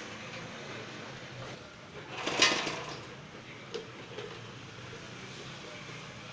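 Electric pressure washer humming steadily, with a short loud hiss of spray about two seconds in.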